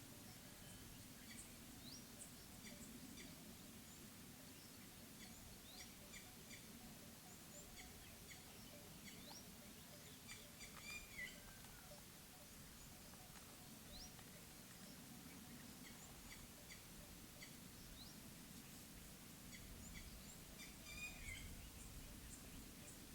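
Faint mountain ambience: small birds give scattered high chirps and short rising tweets over a low, steady background. Louder calls come about eleven seconds in and again near the end.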